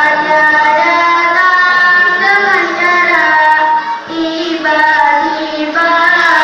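A child's voice singing solo in long, held and sliding notes with ornamental turns, pausing briefly for a breath about four seconds in.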